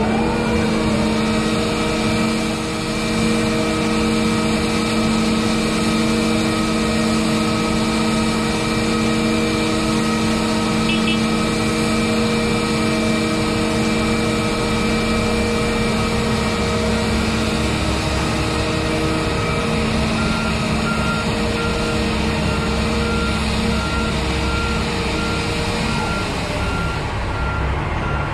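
Self-propelled gantry crane's engine revving up and running at a steady high speed as it hoists the scraper bowl and drives off with it, fading near the end. A repeated warning beep sounds from about twenty seconds in.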